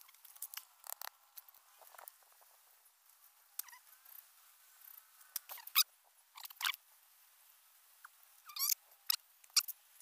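Scattered rustling with sharp clicks and snaps of hands working sticks, string and a machete on the ground while setting a snare trap. The loudest clicks come in the second half.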